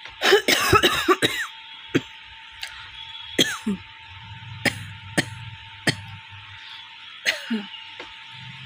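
A woman coughing: a quick run of dry coughs starting about a quarter second in and lasting about a second, then single short coughs and throat sounds every second or so. She calls it a dry cough with no cold behind it, which can come from gas.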